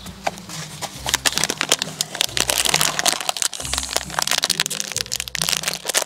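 A plastic chips packet crinkling and crackling as a child opens and handles it, over background music.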